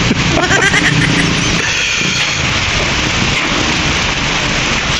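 Steady rain falling on a wet road, an even hiss.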